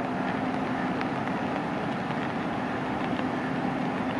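WAP-7 electric locomotive approaching at the head of a passenger train: a steady hum over an even wash of running noise.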